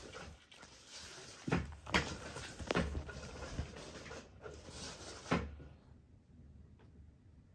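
A kitten pouncing and scampering around a person's trouser legs: several thumps and rustling, dying away about three-quarters of the way through.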